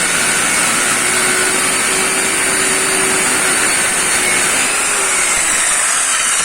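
Total-brand circular saw running at speed, a steady loud motor and blade whine whose pitch sags slightly near the end.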